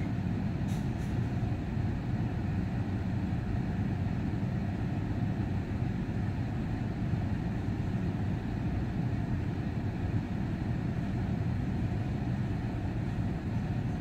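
Steady low vehicle rumble heard from inside a parked car's cabin, even and unchanging throughout.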